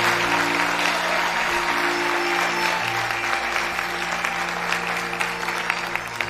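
Audience applauding over an Arabic ensemble's held notes; the applause thins out into scattered single claps near the end.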